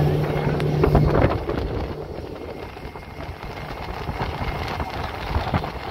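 Boat's outboard motor running with a steady hum, which drops away about a second in, leaving a steady rush of wind noise.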